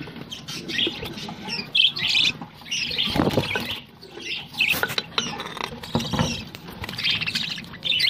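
Budgerigars chirping and chattering in many short bursts, with a brief rustle about three seconds in.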